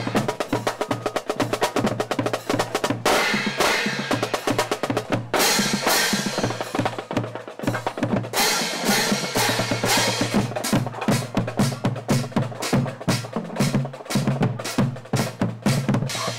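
Marching band drum section playing a fast cadence: rapid snare drum strokes over a regular bass drum beat, with bright cymbal crashes a few seconds in.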